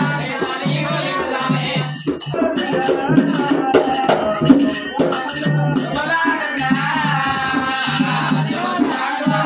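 Folk devotional music: a voice singing a wavering melody over a double-headed barrel drum beaten about twice a second, with a steady high shaking rattle throughout.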